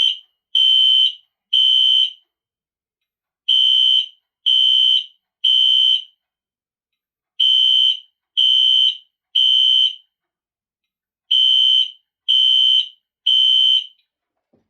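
1997 Wheelock NS fire alarm horn sounding loud, high-pitched beeps in the temporal-three evacuation pattern: three short beeps, a pause, then three more, repeated about four times before it stops near the end.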